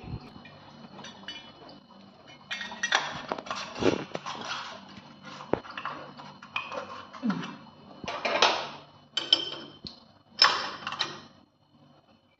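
Metal kitchen tap being worked by hand at its wall fitting: irregular clinks, scrapes and short rubbing noises over several seconds as the broken tap is taken off and changed.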